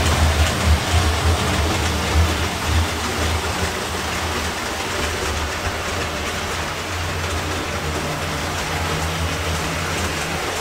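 O gauge model train, a Santa Fe F3 diesel pulling streamlined passenger cars, running on elevated three-rail track with a low rumble of motor and wheels. It is loudest for the first few seconds as it passes close, then settles to a steadier, lower running sound as it moves away around the layout.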